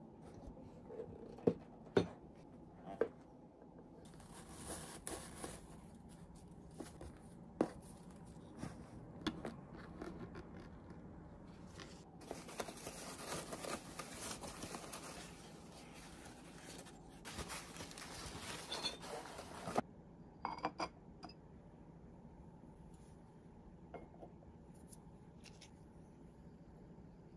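Paper and tissue paper rustling and crinkling as a boxed porcelain candle holder is taken out of its gift bag and unwrapped, with a few light knocks of the box being handled early on. The rustling stops about 20 seconds in, and a brief scraping crackle follows.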